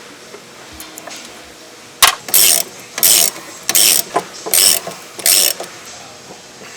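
Hand ratchet wrench clicking in five quick strokes about two-thirds of a second apart, starting about two seconds in, as a strut nut or bolt is worked loose.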